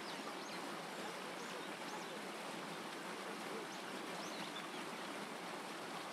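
Steady rushing of a small stream's flowing water.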